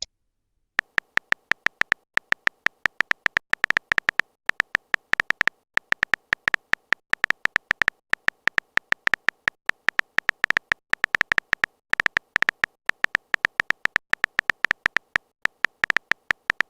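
Phone keyboard typing sound effect: a rapid, uneven run of short electronic clicks, about five to eight a second, with a few brief pauses, as a text message is typed out.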